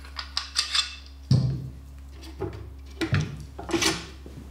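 Sharp clicks and knocks of a woodturning gouge and its metal jig being handled at a Tormek sharpening machine, irregularly spaced, over a steady low hum.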